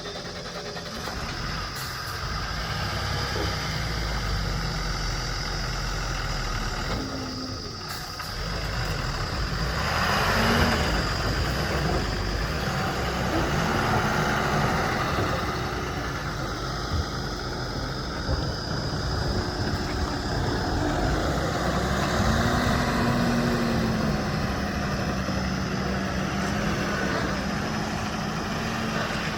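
Heavy diesel engine running steadily, its note rising a little and holding higher about three-quarters of the way through.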